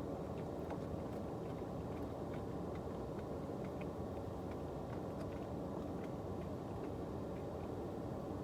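Steady hum of a car's air-conditioning blower with the engine idling, heard inside the cabin, with faint light clicks scattered through it.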